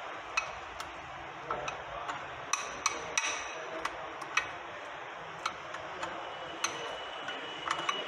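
A spoon stirring thick coconut burfi batter in a Borosil glass bowl, partway through microwaving: irregular light clinks and taps of the spoon against the glass, about one or two a second.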